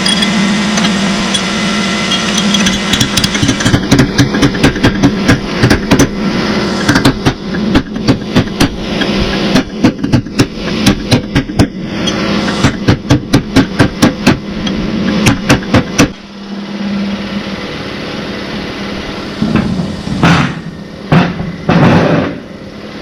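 Air compressor running with a steady hum, while a long run of sharp knocks, about two or three a second, goes on from a few seconds in until about sixteen seconds in. A few separate louder noises follow near the end.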